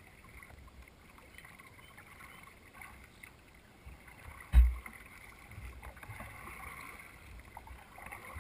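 Kayak paddling on calm water: quiet paddle strokes and dripping from the blades. A single sharp, low thump about four and a half seconds in is the loudest sound.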